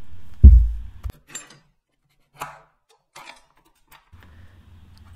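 Metal parts handled on a steel workbench: a heavy low thud about half a second in, then a few light clicks and clinks of a steel shaft and its collars.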